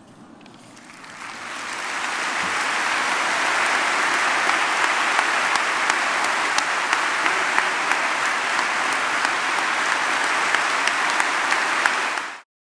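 A church congregation applauding. The applause swells over the first couple of seconds into steady clapping, then cuts off abruptly near the end.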